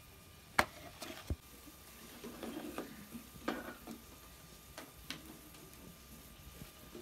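Kitchen handling sounds: a sharp click about half a second in and a knock just after one second, then soft clattering and rustling, with a few lighter ticks later.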